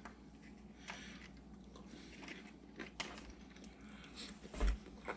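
Quiet chewing of butter-fried hen of the woods mushrooms, with faint clicks and a soft thump a little before the end.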